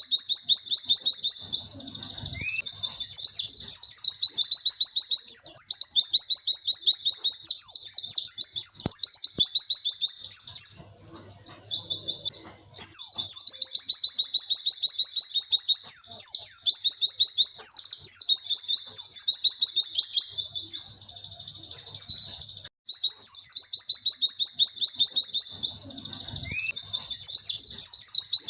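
Pleci (white-eye) singing a long, fast 'witwit' run of high chirping notes, with brief breaks about 11 and 22 seconds in.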